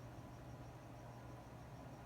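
Faint night ambience: crickets chirping in a fast, even pulse over a steady low hum.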